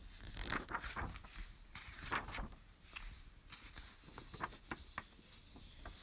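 Soft rustling and sliding of glossy book pages as they are handled and turned, followed by a run of small sharp clicks and taps of a fingertip on the paper.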